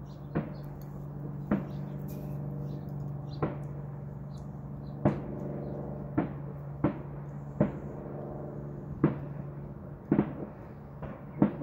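Fourth of July fireworks banging in the neighbourhood: about ten sharp, separate bangs at irregular intervals, each with a short echo, over a steady low hum. To the listener it sounds like a war going on.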